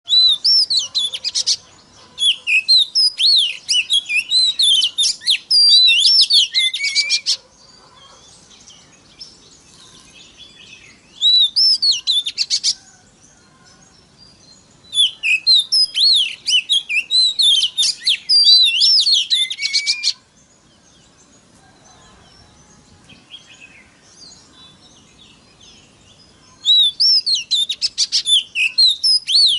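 Oriental magpie-robin (kacer) singing: fast strings of varied, sweeping high whistles mixed with sharp clicking notes. The song comes in several long bursts, with pauses of a few seconds between them.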